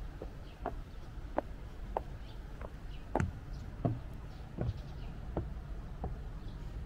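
Footsteps of someone walking at a steady pace, about one and a half steps a second, on hard garden paths and a small wooden footbridge; a few steps land with a heavier thump.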